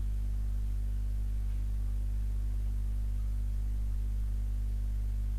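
Steady low electrical hum with a stack of overtones, unchanging throughout, with no other sound over it.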